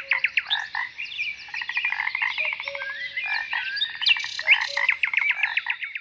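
Birdsong: a dense run of quick chirps and fast trills mixed with harsh, croaking notes, cutting off suddenly at the end.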